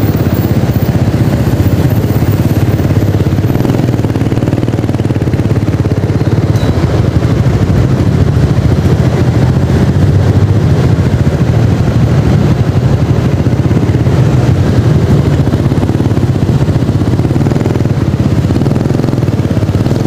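Motor scooter's engine running at low speed, a steady low rumble close to the microphone.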